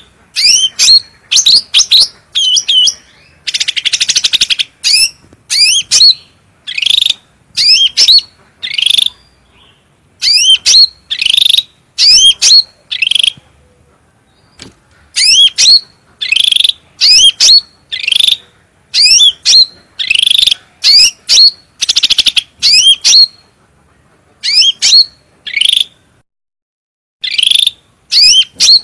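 A cucak rante songbird singing energetically: quick runs of short, clear, whistled notes that sweep up and down, with a buzzy trill about four seconds in and brief pauses between phrases.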